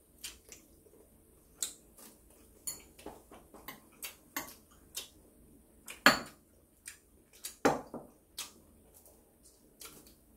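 Metal chopsticks and a spoon clicking and tapping against ceramic bowls and plates at a meal, in an irregular run of light clinks. Two louder knocks come about six and seven and a half seconds in.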